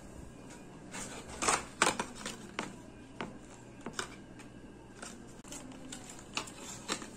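Irregular light clicks and short rustles of small objects being handled in a small room, the loudest cluster about a second and a half in, then scattered ones until the end.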